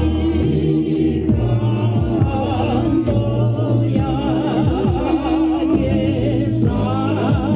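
Music with singing: a voice with a strong vibrato over sustained low accompaniment.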